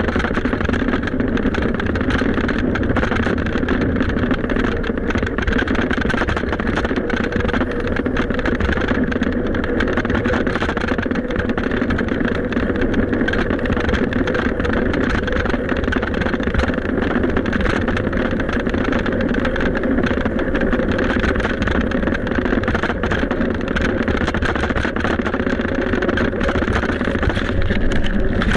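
Steady rushing wind and road noise from riding a bicycle, with a faint steady hum under it.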